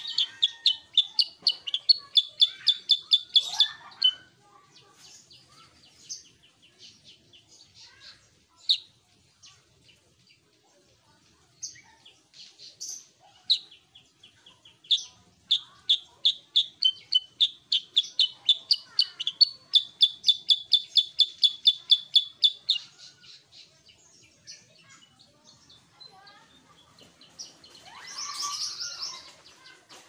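Caged kutilang sutra, a black-headed yellow bulbul, singing in long fast trains of repeated high chirps at about six or seven notes a second, with scattered single notes between the trains. A brief rustle comes near the end.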